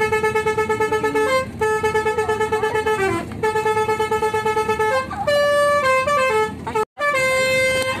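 A bus 'telolet' horn, a multi-tone musical bus horn, sounding loudly. It gives three bursts of a rapidly pulsing note, then a short run of stepped falling notes, and after a brief dropout a single held note.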